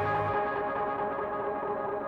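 Background music: held, echoing ambient notes slowly fading away, the low notes dropping out just after the start.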